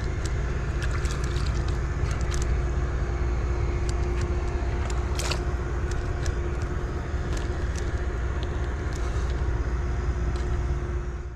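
Docked river ferry's machinery humming steadily: a low rumble with a constant pitched drone, and scattered light clicks over it.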